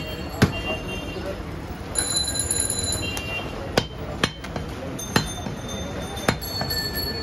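Butcher's cleaver chopping goat meat on a round wooden block: about five sharp chops, unevenly spaced, several with a brief metallic ring. A short bell-like ring sounds about two seconds in.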